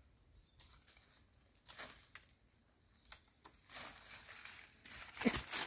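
Fresh leaves rustling as they are picked and handled, in scattered bursts at first that grow busier in the second half, with the loudest rustle near the end.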